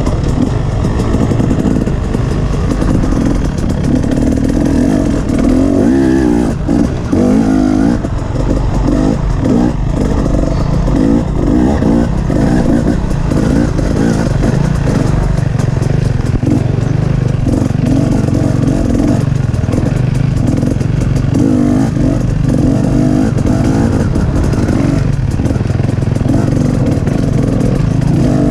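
KTM dirt bike engine running on a trail, heard close up from the rider's position, its revs rising and falling as the throttle opens and closes, with a few brief drops in revs about six to eight seconds in.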